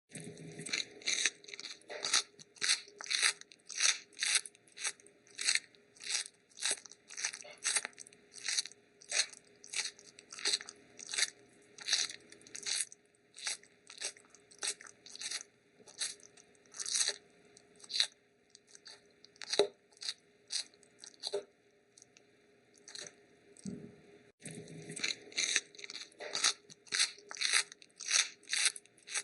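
Kangaroo chewing grass close to the microphone: rhythmic crunching bites, about two to three a second, that grow sparse for a few seconds past the middle and then resume.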